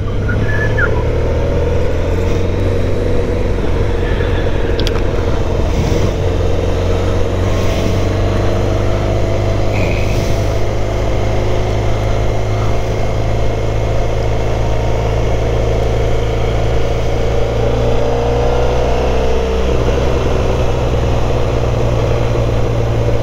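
Motorcycle being ridden at a steady pace: the engine runs evenly under road noise, its pitch drifting gently up and down.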